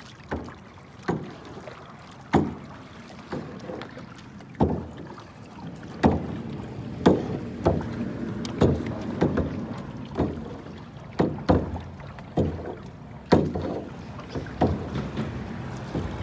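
Kayak paddle strokes: the paddle blades splash into the water about once a second, with water noise between them, getting louder about six seconds in.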